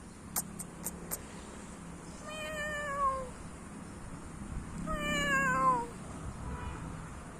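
Two drawn-out animal cries, each about a second long and sliding down in pitch, from a young goat or a cat, after a few sharp clicks in the first second.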